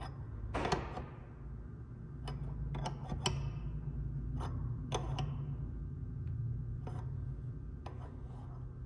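Scattered light metallic clicks and taps, about ten at irregular intervals, as a wrench and dial indicator are worked against a transmission mainshaft to measure its end play, over a steady low hum.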